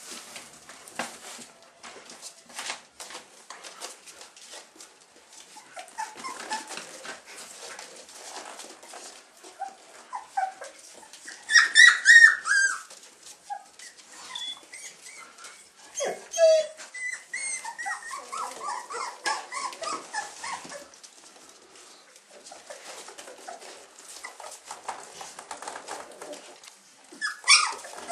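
Young puppies whimpering and squealing in high-pitched calls, loudest in a burst of squeals about halfway through and again near the end, with light clicking throughout.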